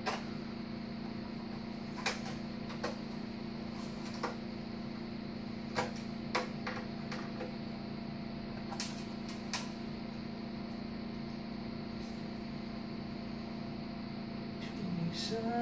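Scattered sharp clicks and light taps from handling the metal case of a satellite receiver and its screws, about ten spread irregularly, over a steady low hum.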